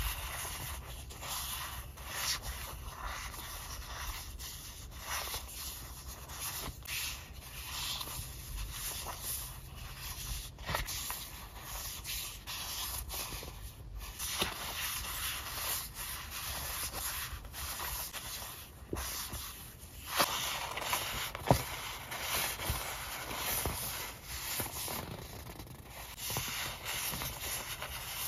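Paper sticker sheets rustling and sliding against one another as a stack of them is shuffled and fanned by hand, with small ticks of sheet edges and one sharper click about three-quarters of the way through.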